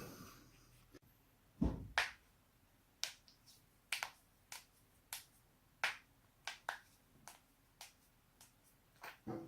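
Human joints cracking: a run of about fifteen short, sharp pops, coming roughly every half second for most of the stretch, with a duller, deeper crack about two seconds in.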